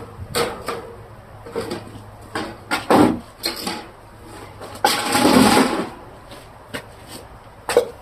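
Knocks and clatter of refrigerator parts being handled while they are washed, with a short rush of poured or splashing water about five seconds in.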